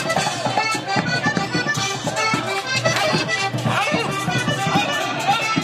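Accordion-led Panamanian música típica playing, with a steady percussion beat.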